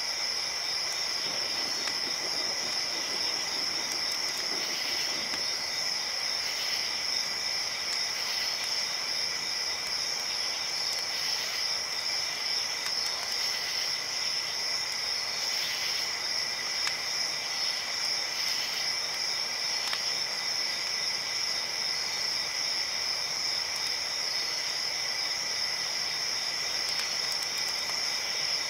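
Crickets chirping in a steady, unbroken chorus of high trills, over an even hiss.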